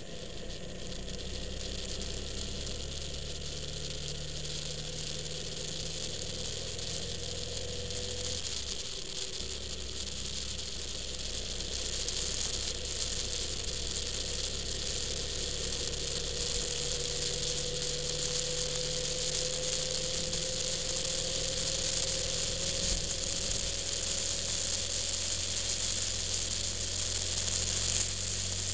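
Motorcycle engine running at road speed, picked up by a bike-mounted camera along with wind hiss. The engine note changes about 9 seconds in, then climbs slowly as the bike speeds up, and the wind hiss grows louder from about 12 seconds in.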